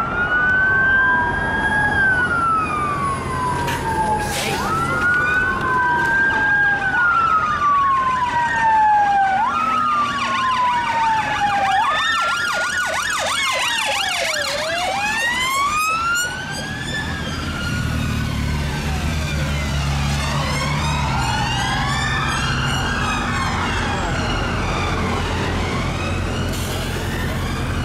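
Police vehicle siren wailing, each sweep rising sharply and falling slowly over about two seconds. About halfway through it switches to faster up-and-down sweeps, with several sweeps overlapping as if more than one siren is sounding, over a low traffic rumble.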